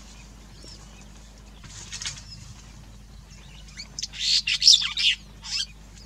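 Donaldson-Smith's sparrow-weaver calling: scattered short chirps, then a loud burst of harsh, chattering chirps about four seconds in, with one more short burst soon after.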